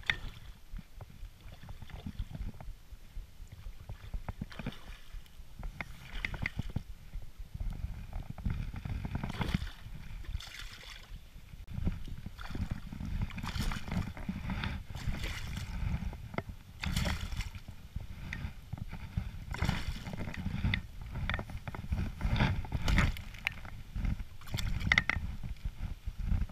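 A hooked pike thrashing and splashing at the water surface right beside a float tube, in repeated irregular bursts over a low rumble.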